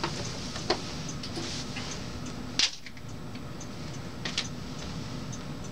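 Whiteboard eraser rubbing across the board, then scattered light clicks and knocks of a marker and handling at the whiteboard over a steady room hum; the sharpest click comes about two and a half seconds in.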